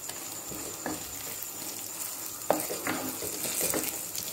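Wooden spatula stirring and scraping a frying onion-tomato masala around a clay pot, over a steady sizzle. Several short scrapes; the strongest comes about two and a half seconds in, and more follow towards the end.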